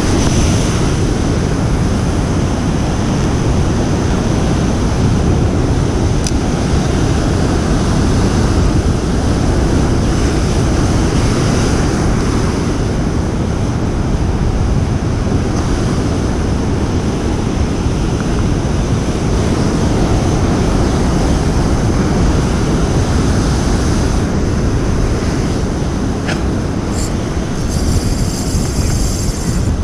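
Wind rumbling across an action camera's microphone over surf breaking on rocks, a steady loud roar. A spinning reel's faint rapid ticking joins near the end as it is wound.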